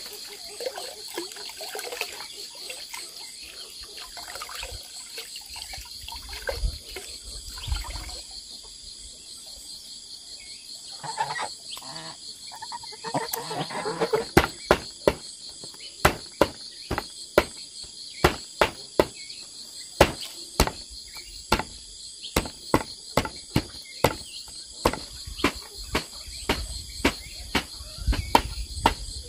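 Steady chorus of insects, with a cleaver chopping leafy greens from about halfway through: sharp, loud strikes at about two to three a second.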